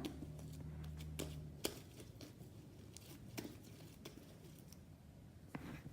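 Faint scattered clicks and rustles of handling, with a low hum during the first second and a half.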